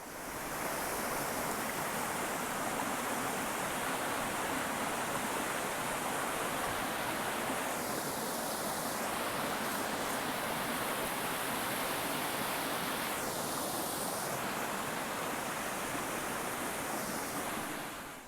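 Steady rushing of water in a torrential downpour: rain and floodwater running over a trail, an even hiss that starts and stops abruptly.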